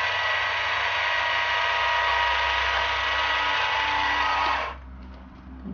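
Huina 1573 RC dump truck's tipper-bed lift motor running with a steady whine as the bed raises, cutting off about four and a half seconds in.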